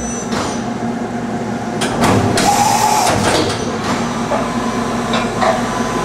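Okuma & Howa Millac 438V CNC vertical machining center running its demo program: a steady hum, with a stretch of whirring and a brief whine from about two to three and a half seconds in, and a few clicks.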